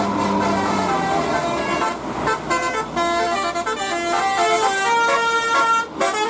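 Bus 'telolet basuri' multi-tone horn playing a quick melody of short stepped notes, starting about two seconds in and cutting off shortly before the end, over traffic noise.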